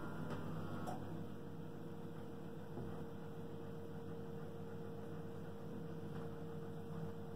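Low, steady electrical hum of room tone, with no distinct sounds.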